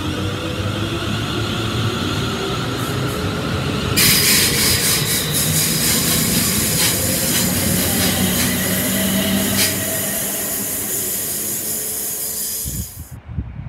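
London Northwestern Class 350 Desiro electric multiple unit moving through the platform, its traction motors whining steadily. About four seconds in, a loud high hiss sets in over the whine and cuts off suddenly near the end.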